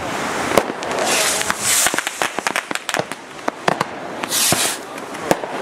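Fireworks going off: an irregular run of sharp bangs and cracks, with two short hissing rushes, about one second in and again near four and a half seconds.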